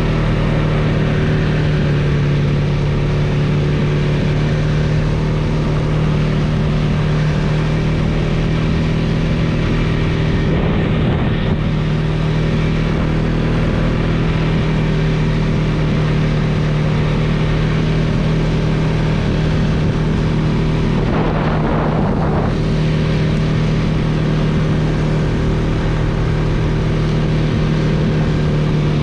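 ATV engine running at a steady cruising pace on a dirt trail, a constant low drone, with two brief bursts of rougher noise about a third and two-thirds of the way through.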